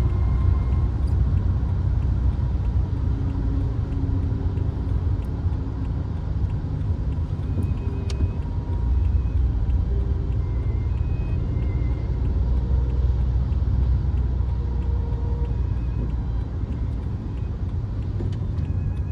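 Peugeot 3008 driving, heard from inside the cabin: a steady low rumble of road and engine noise.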